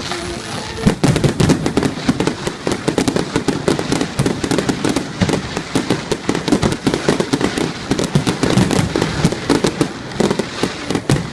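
Fireworks barrage: many aerial shells bursting in quick succession, several bangs and crackles a second, thinning out near the end.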